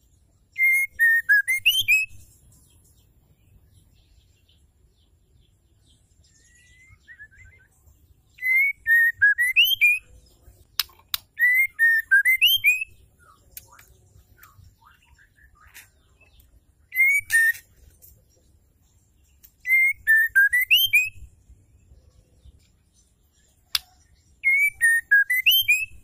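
White-rumped shama (murai batu) singing a short whistled phrase over and over, six times. Each phrase lasts about a second and a half: clear notes that dip and then sweep upward, with thin, high chattering notes over them. A couple of sharp clicks fall between the phrases.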